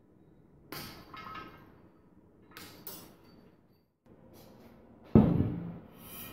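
Several knocks and clatters of things being handled, the loudest a heavy thump about five seconds in.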